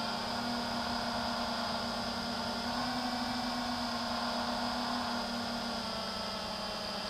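FPV quadcopter's electric motors and propellers running with a steady whining hum. The pitch rises a little at the start and drops back about five seconds in as the throttle changes.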